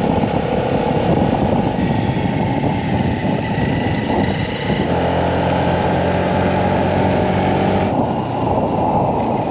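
Wind buffeting the microphone on a moving Honda Navi scooter, with the scooter's small single-cylinder engine humming steadily underneath. The engine note comes through more clearly for a few seconds past the middle.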